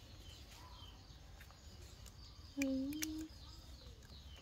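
Faint bird chirps in the background, and one short low call lasting under a second about two and a half seconds in.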